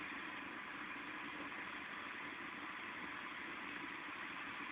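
Heavy rain falling with a steady hiss.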